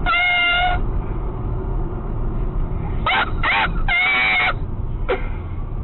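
Car-cabin road and engine noise at motorway speed. Over it come several short, high-pitched vocal cries: one right at the start, a few more about three to four seconds in, and a brief falling one near the end.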